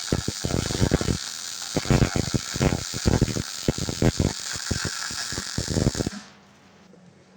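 Wire-feed welder arc crackling with rapid, irregular pops and a high hiss as a bead is run on the steel bucket, cutting off suddenly about six seconds in; a faint low hum remains.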